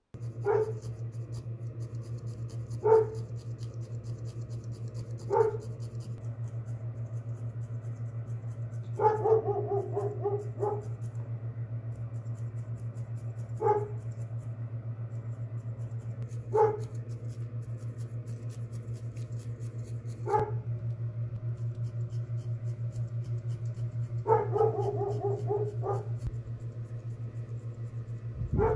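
A dog barking, single short barks every few seconds with two quick runs of several barks, over a steady low hum. Faint rapid clicking of a felting needle stabbing wool into a foam pad comes and goes.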